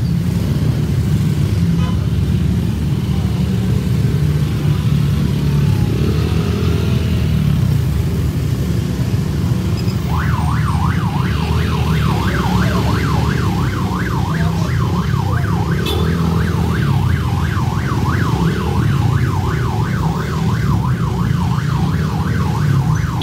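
Many motorcycle engines running together, a steady low sound. About ten seconds in, a fast yelping siren starts, rising and falling about three to four times a second, and keeps on over the engines.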